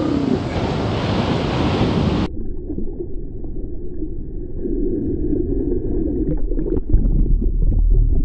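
Ocean surf breaking with wind rushing over the microphone. About two seconds in it cuts to a duller, muffled take, with heavy low wind rumble near the end.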